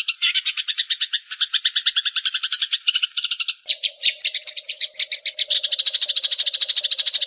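Birdsong: a continuous, very fast trill of short, sharp chirps. About halfway through, the rhythm changes and a low steady hum joins underneath.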